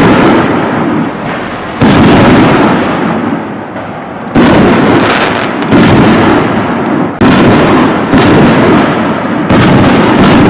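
Detroiter 5-inch XL canister shells bursting in the air, one after another: about six sudden loud reports at irregular gaps of one to two and a half seconds, each trailing off into a noisy tail before the next.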